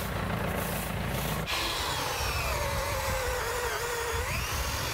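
Tractor engine idling for the first second and a half. Then a long squeak from a metal pipe gate swinging on its hinge, slowly falling in pitch and then rising sharply near the end.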